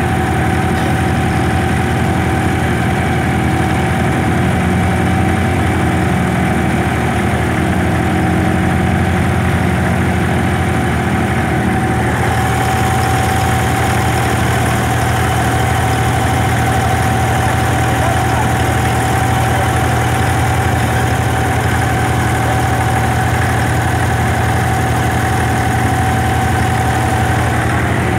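Diesel engine of an abra water taxi running steadily under way: a loud, even low drone with a constant higher hum over it.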